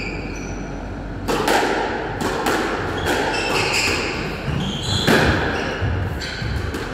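Squash rally: the ball is struck by rackets and slaps off the court walls in a run of sharp hits beginning about a second in, with short high squeaks from court shoes on the wooden floor between them.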